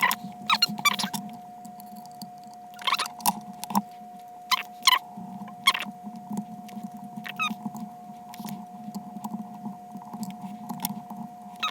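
Small magnetic screwdriver working the tiny screws inside an iPod Classic: irregular clusters of short, squeaky scraping clicks, most of them in the first half. A faint steady hum sits underneath.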